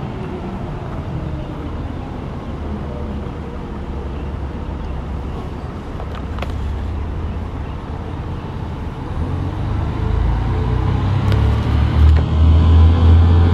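Leyland Olympian double-decker bus's diesel engine running as the bus pulls slowly round and approaches, its low engine sound growing louder over the last few seconds.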